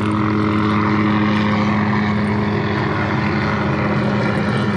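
Small helicopter flying low nearby, its engine and rotor giving a loud, steady drone.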